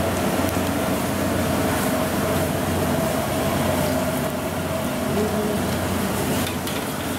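Potato vadas in gram-flour batter deep-frying in a wok of hot oil over a gas burner: a steady sizzle over a constant low machine hum with a faint steady tone in it.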